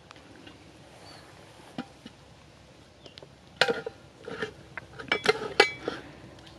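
A metal spatula clanking and scraping against a large metal wok, a single clink and then a quick run of sharp metallic strikes with brief ringing about halfway through.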